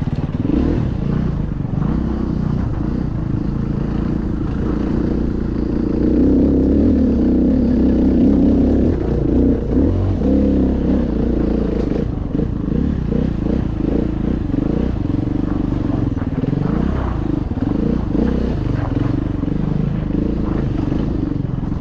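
KTM EXC enduro motorcycle engine running under load, its pitch rising and falling as the throttle is worked through the bends. It is a little louder about a third of the way in.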